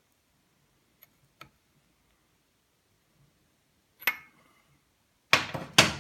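A few faint clicks, then a sharp bang about four seconds in and two louder bangs close together near the end, the last leaving a short ringing tone.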